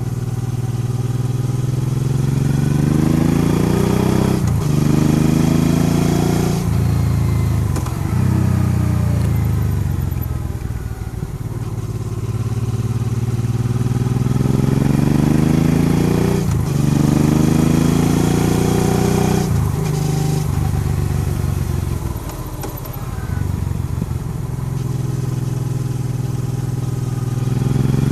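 Honda Transalp XL650V's V-twin engine riding hard through bends. It rises in pitch as it accelerates, and several times it breaks off briefly and falls away as the throttle is closed.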